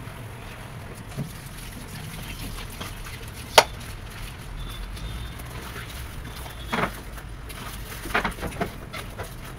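Kitchen cleaning at a countertop and sink: one sharp knock about three and a half seconds in, then a few light knocks and clatters near the end, over a low steady hum.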